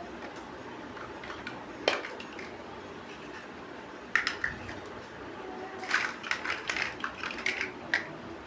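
Plastic toy building bricks clicking and clattering as pieces are handled and pressed together: one sharp click about two seconds in, a short cluster of clicks around four seconds, then a quick run of clicks near the end.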